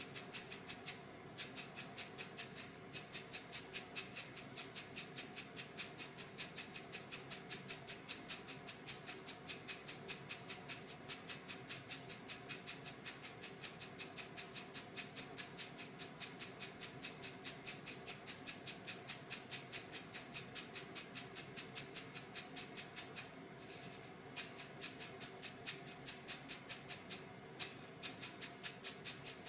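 Freshly roasted coffee beans rattling in a stainless-steel mesh strainer shaken back and forth, about four or five shakes a second, to cool them after roasting. The shaking stops briefly a few times.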